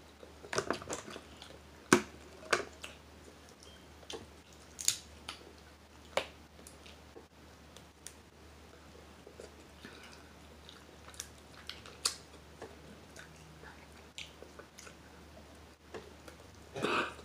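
Close-up eating sounds: chewing, with sharp clicks and snaps every second or few as crab shell is picked apart by hand, and a short louder sound near the end.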